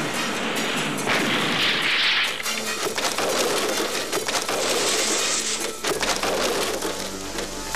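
Cartoon action music over a run of crashes and knocks as stacked wooden crates topple and tumble, with two hissing swells, about a second in and about five seconds in.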